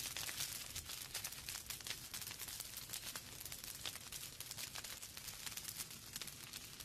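Wood fire crackling in a fireplace: a dense, irregular run of small pops and snaps over a steady hiss.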